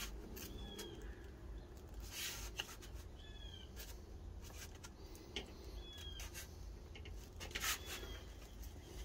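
Soft rustling and rubbing of a cardboard template pressed down by hand, the loudest rustles about two seconds in and near the end. A few short bird chirps come every couple of seconds over a low hum.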